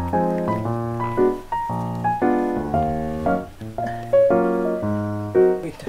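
Background music: a light piano tune of short notes changing quickly, with a steady bass line.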